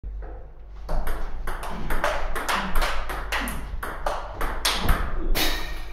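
Table tennis rally: the celluloid-type ball clicking sharply off rackets and table in quick alternation, several hits a second.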